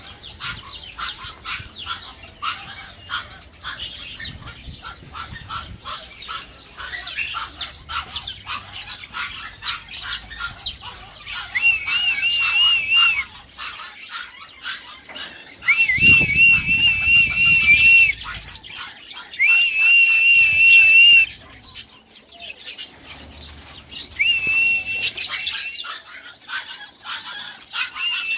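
Caged budgerigars and other aviary birds chirping and chattering in quick, dense chirps, with a louder wavering call repeating about five times in the second half, each lasting one to two seconds.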